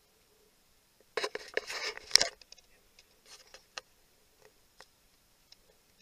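Handling noise on the camera: a burst of sharp clicks and rustles about a second in, lasting about a second, then a few scattered single clicks.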